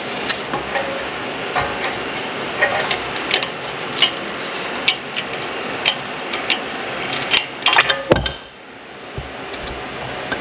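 Scattered metal clicks and clinks as the screw of a piston compressor clamp is worked on a front brake caliper, pushing the piston back into its bore, with a cluster of louder clicks about three-quarters of the way through. A steady hiss runs underneath and drops off soon after that cluster.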